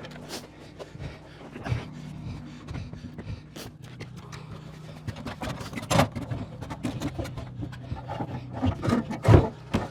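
Irregular knocks, clicks and scrapes over a steady low hum, getting busier and louder in the second half, with the loudest knock near the end.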